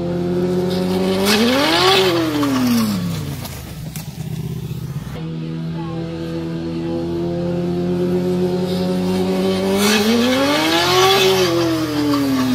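Sport motorcycle engine passing at speed, its note climbing and then dropping away, twice.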